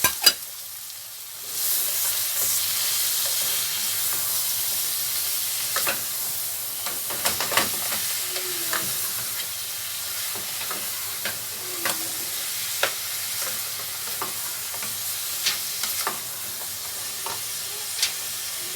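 Small cubes of meat frying and sizzling in butter and oil in a pot, stirred with a spoon that clicks and scrapes against the pot. The sizzle swells suddenly about a second and a half in and then holds steady.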